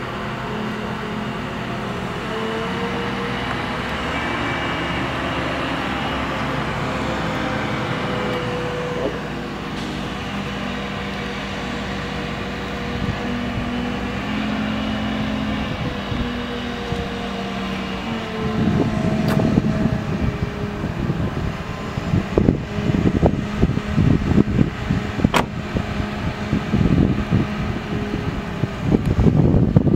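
Heavy work-truck engine running steadily with a low hum. A little past halfway, an uneven low rumbling comes and goes and grows louder, with two sharp clicks.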